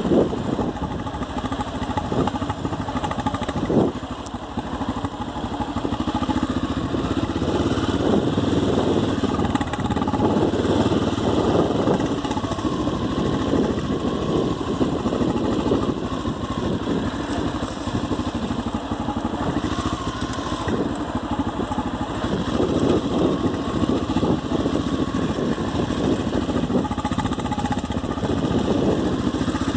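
Motorcycle engine running steadily as the bike is ridden at low speed.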